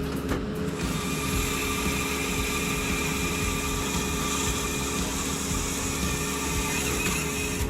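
Firewood processing machine running, with a steady low hum throughout. A high whine with hiss sets in about a second in and stops just before the end.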